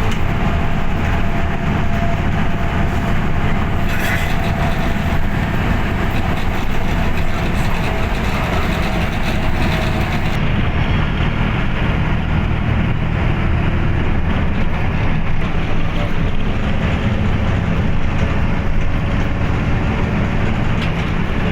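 Steady low rumble of a truck on the move, engine and road noise together. A faint thin whine fades out about ten seconds in.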